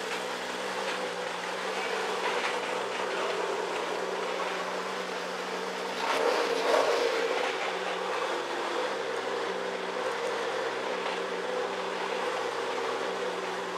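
Toyota 2JZ-GTE straight-six, rebuilt with 272 cams and a single GT4088R turbo, idling steadily shortly after a cold start, with a brief louder swell about six seconds in.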